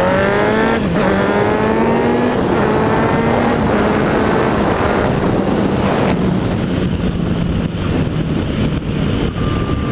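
Sport motorcycle engine accelerating through the gears with clutchless upshifts. Its pitch climbs and drops back at each shift, about three times in the first four seconds, then holds steady at cruising speed, with wind rushing over the bike-mounted microphone.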